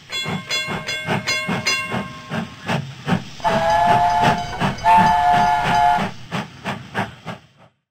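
Steam train sound effect: rhythmic chuffing at about three beats a second, with a high ringing tone over the first two seconds, then a two-note steam whistle blown twice in the middle before the chuffing stops.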